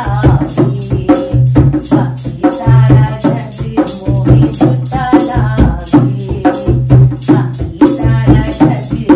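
A woman singing a Hindi devotional bhajan to her own hand-played dholak, a two-headed barrel drum, its deep bass strokes keeping a steady rhythm, with a metallic jingling marking each beat.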